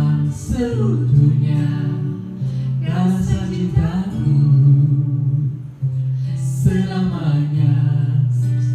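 A man and a woman singing a song into microphones over a guitar backing track, karaoke-style.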